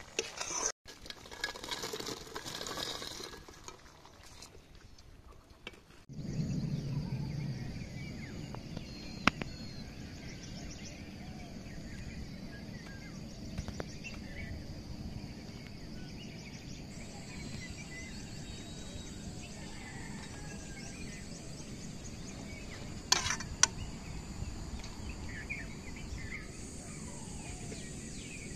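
Steady outdoor background noise with faint bird calls, broken by a few sharp clinks of a steel ladle against a metal kadhai, two of them close together about three quarters of the way through.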